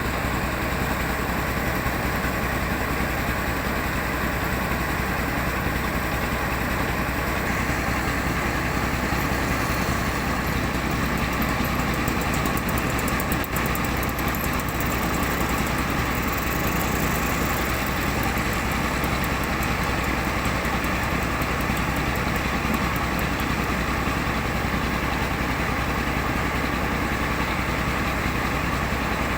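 An old car engine running steadily at an even speed, driving a rice milling machine.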